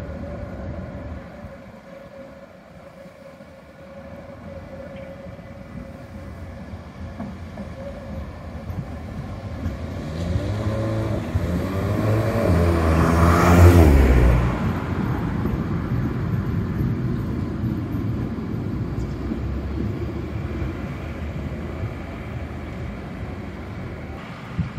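Tatra KTNF6 articulated tram passing close by. Its running noise builds up to a loud peak about halfway through, with a whine that drops in pitch as it goes past, then fades away slowly.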